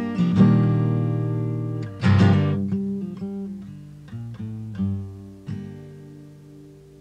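Solo acoustic guitar playing the closing bars of a folk song without voice: single picked notes, a strummed chord about two seconds in, then a final chord about five seconds in, left to ring and fade away.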